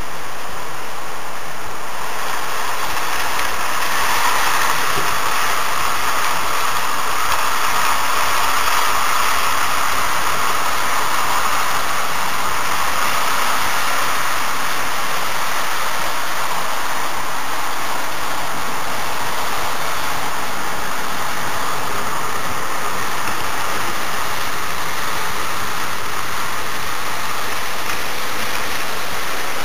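HO-scale model train running on the layout: a steady, noisy whir of the locomotive motor and wheels on the track, a little louder for several seconds after the start, with the locomotive passing close by near the end.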